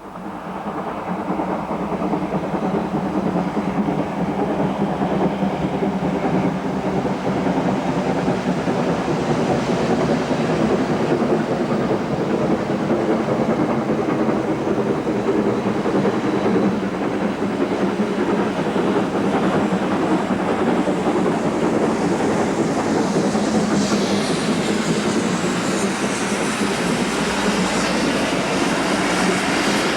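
LNER Class K4 2-6-0 steam locomotive hauling its train, a steady running rumble of engine and wheels on the rails that swells up over the first couple of seconds. Faint high screeching joins in over the last few seconds.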